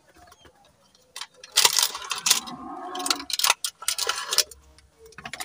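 Plastic packaging crinkling and clicking as a small gadget is unboxed: a clear plastic tray and a plastic bag handled against a cardboard box. The rustling starts about a second in and runs in dense crackles until near the end.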